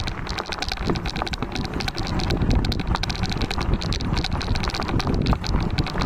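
Duotts S26 electric fat bike being ridden: low wind rumble on the microphone with rapid, irregular clicking throughout.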